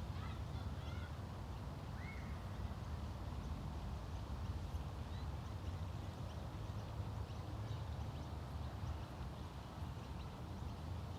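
Park ambience by a lake: scattered short bird calls, most of them in the first couple of seconds, over a steady low rumble.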